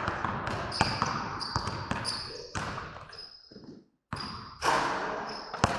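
Basketballs bouncing on a wooden gym floor, with short high sneaker squeaks between the thuds. The sound cuts out briefly about four seconds in.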